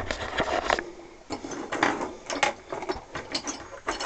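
Handling noise: irregular light clicks and knocks, as of objects being picked up and moved about.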